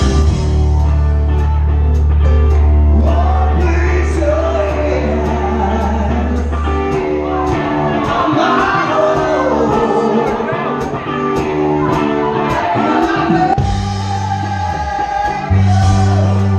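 Live band playing a rock song, bass notes held under the music and regular high ticks keeping the beat, with a lead vocal coming in about three seconds in. It is heard through the band's onstage monitor mix.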